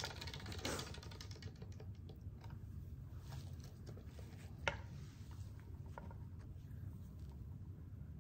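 Faint, irregular clicks and taps from a small spinning wheel of fortune coming to rest. The clicks are closer together in the first second, and there is one sharper tap about four and a half seconds in.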